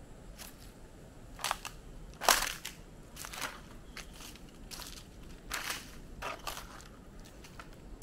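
Irregular crunching and crackling, about fifteen sharp snaps spread unevenly over faint background hiss, the loudest a little over two seconds in.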